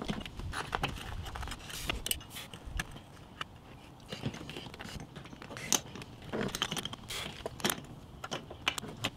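Small metal clinks, rattles and scrapes as a recessed D-ring tie-down pan and its ring are handled and pressed into a hole cut in the van's floor.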